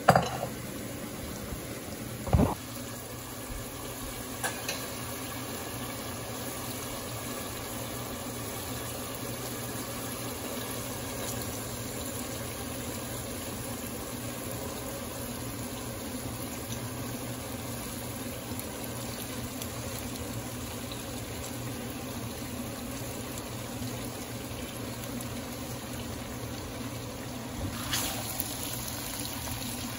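Steady bubbling and sizzling of food cooking in a pan, with two sharp knocks in the first few seconds.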